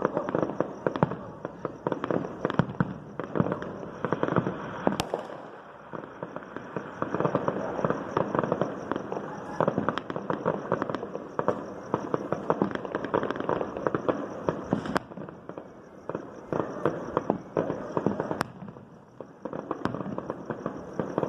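Fireworks and firecrackers going off all around in a continuous, dense string of rapid bangs and crackles, with a few sharper single cracks standing out.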